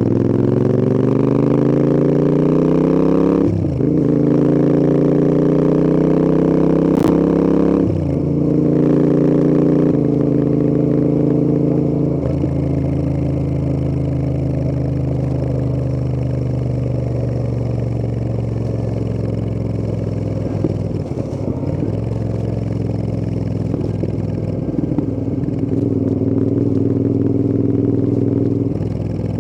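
Royal Enfield Interceptor 650's parallel-twin engine pulling hard through two upshifts, its note climbing and dropping at each change. It then settles into a steady cruise, the pitch slowly easing down.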